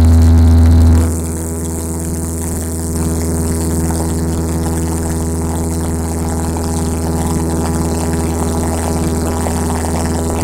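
Engine and propeller of a small single-engine propeller plane in cruising flight, heard from inside the cabin as a steady drone. It is louder for about the first second and steps up slightly about three seconds in.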